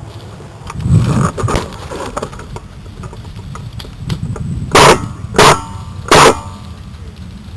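Three shots from an A&K SPR Mod0 electric airsoft rifle, close to the microphone, well under a second apart, each a short sharp crack with a brief gearbox whine. About a second in there is a louder rumbling handling noise.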